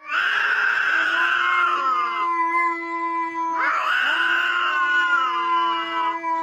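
An animal giving two long drawn-out wailing calls, one after the other. Each starts harsh and then settles into a steady held pitch.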